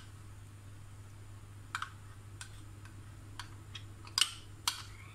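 Light clicks and taps of a metal spoon against glass bowls as thick mayonnaise cream is scraped and poured from one glass bowl into another. There are several separate ticks, the loudest about four seconds in, over a low steady hum.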